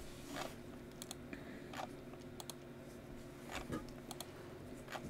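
Faint computer mouse clicks, about one a second and unevenly spaced, re-running an online list randomizer, over a steady low hum.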